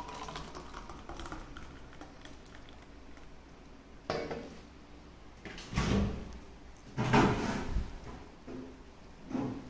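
The last of a pour of blended coconut juice into a glass fading out, then a few separate knocks and clunks as the glass and the steel mixer jar are handled and set down on the stone countertop.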